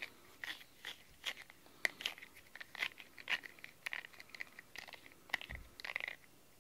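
Shed cat fur being picked by hand off the bristles of a pink rubber grooming brush, close to the microphone: an irregular run of soft crackling clicks and rustles.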